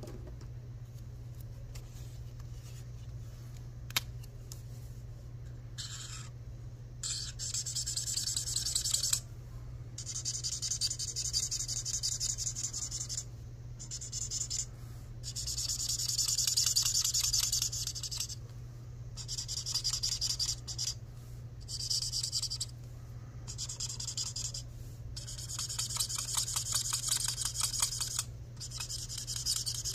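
Felt-tip marker colouring on paper: quick back-and-forth scratching strokes in runs of a second or two with short pauses. The strokes start about six seconds in.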